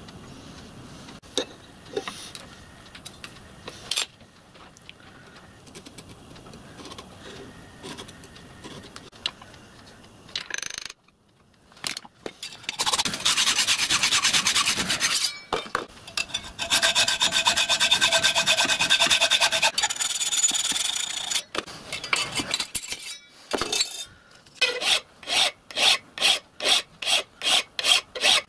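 Hand hacksaw cutting a metal bar clamped in a bench vice, a loud steady rasp with a short pause, after light taps and scratches of marking out. Near the end a hand file works the metal in even strokes, about two a second.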